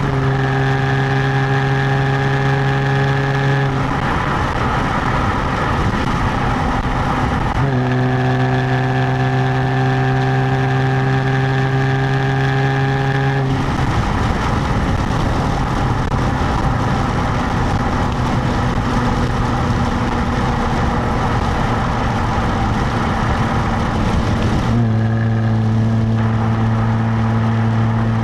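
Exhaust of a stock 2017 Jaguar F-Type heard at the rear plate while driving: a steady engine drone at nearly constant revs, twice dropping away for several seconds into a rushing noise, then returning near the end.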